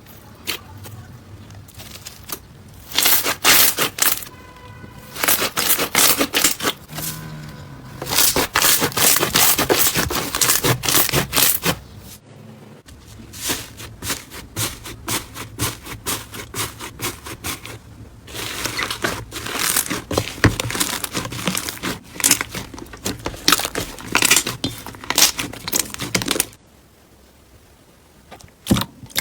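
Crunchy slime being squeezed and pressed, giving dense runs of crackling and popping clicks in several separate bursts with short quieter gaps between them.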